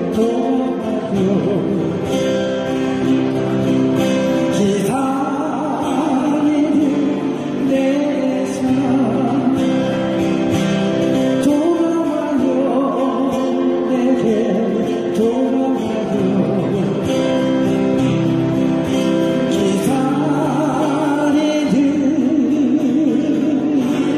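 A man singing a slow Korean ballad with vibrato, over guitar accompaniment and steady held backing notes.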